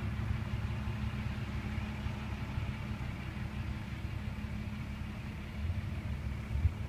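2006 Kia Optima LX's 2.4-litre four-cylinder engine running steadily at low speed as the car backs up slowly, a steady low hum that rises slightly near the end. The engine and transmission are being test-driven and are judged good.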